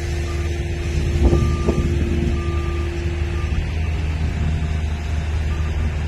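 Boeing 747-400F's four jet engines at takeoff power on the runway roll: a steady deep rumble with a steady humming tone.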